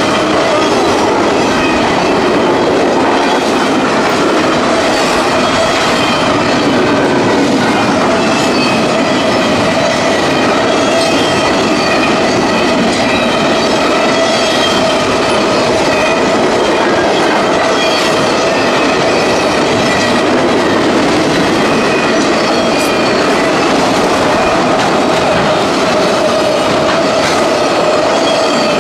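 CSX intermodal freight train cars passing at speed: steady wheel-on-rail noise, with a held tone and wavering high squeal from the wheels.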